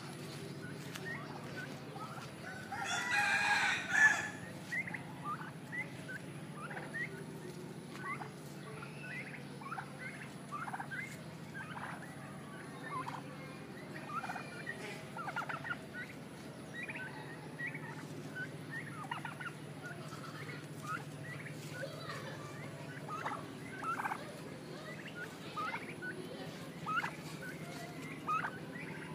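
Domestic turkeys calling with short, separate clucks and yelps that repeat every second or so, and one loud, longer call lasting over a second about three seconds in.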